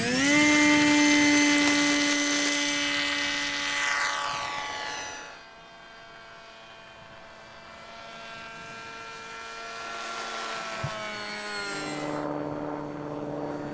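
Electric motor and propeller of a 3S-powered RC scale model aeroplane whining. The pitch rises right at the start as the throttle opens, then holds steady and loud and bends down as the plane passes. About five seconds in it gives way abruptly to a fainter, more distant whine that slowly sags in pitch, and it changes suddenly again near the end.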